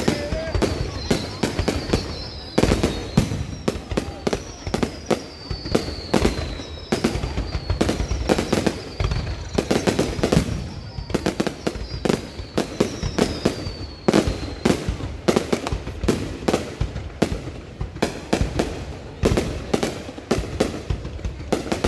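Fireworks going off in a dense, irregular barrage of sharp bangs and pops. Short falling whistles repeat every second or two through the first two-thirds, then stop while the bangs carry on.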